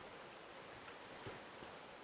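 Faint, steady hiss of outdoor ambience with a soft, low thump a little past halfway.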